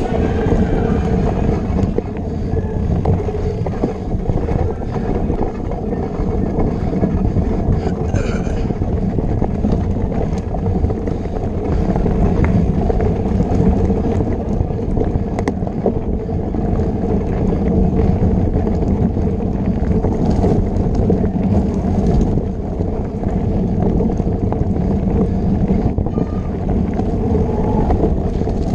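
Steady wind rush on the microphone mixed with the rumble and rattle of a mountain bike ridden fast over a rough dirt trail, heard from on the bike.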